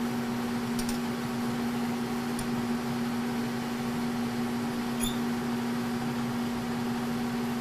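K&T milling machine, rigged as a lathe, running steadily with an even mechanical hum, with a few faint light clicks.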